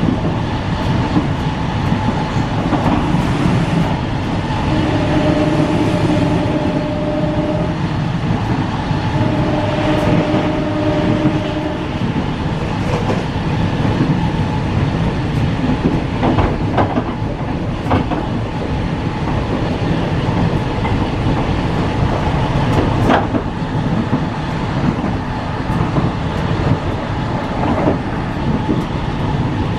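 Mild-steel economy passenger coach running at speed: a steady rumble of wheels on rail with clicks over the rail joints. About five and nine seconds in, a long steady tone sounds twice, each for about three seconds.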